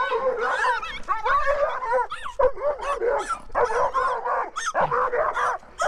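Red Doberman Pinscher puppy barking loud, a rapid, almost unbroken string of high barks that slide up and down in pitch into whines, as it strains on the leash at a chihuahua.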